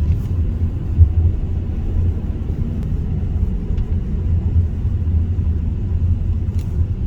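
Steady low rumble of a car driving along the road, engine and tyre noise, with a brief thump about a second in.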